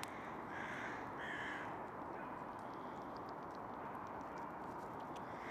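Crows cawing: two short caws about half a second and a second in, over steady background noise, with a few faint ticks later.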